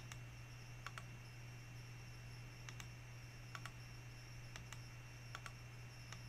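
Faint computer mouse clicks, single and occasionally doubled, about a second apart, over a steady low electrical hum.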